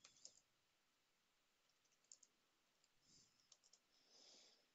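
Faint, scattered computer keyboard clicks as a short query is typed, over near silence, with a soft rushing noise about four seconds in.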